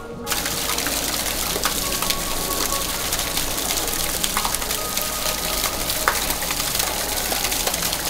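Water trickling and splashing down a rockwork wall in a small artificial waterfall. It is a steady rush dotted with small drips and splashes and starts a moment in.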